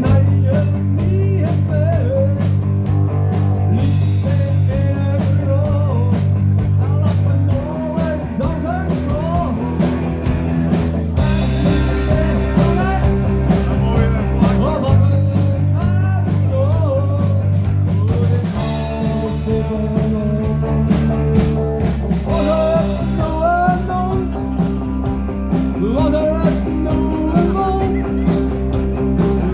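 Rock music with guitar, drums and a singing or lead melody line, the bass chords changing every few seconds.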